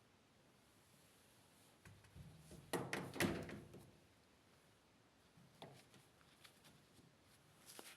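A burst of knocks and clatter about three seconds in, as objects are handled and set down, then a few light clicks.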